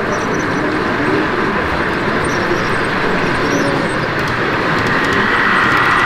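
Steady din of a busy exhibition hall with model trains running on the layout; a higher-pitched whine swells about five seconds in.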